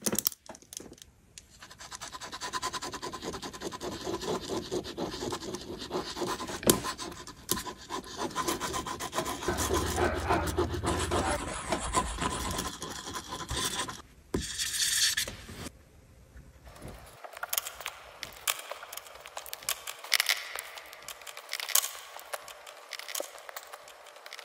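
Pens scribbling loops on paper: a fast, continuous scratching and rubbing, loudest in the first half. About two-thirds of the way through it gives way to quieter strokes and scattered taps of paint-marker tips on the paper.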